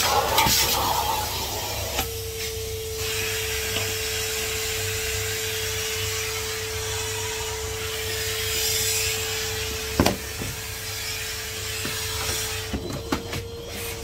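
Henry HVR200 620 W canister vacuum cleaner running with a steady whine over rushing air, its hose rubbing and shifting on the floor. A sharp knock comes about ten seconds in and a few light clicks near the end.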